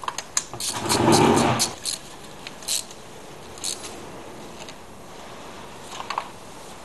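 Metallic clicks and clinks of hand tools and spark plugs being handled in the engine bay as new spark plugs are fitted, with a short, louder burst of handling noise about a second in and a few single clicks after.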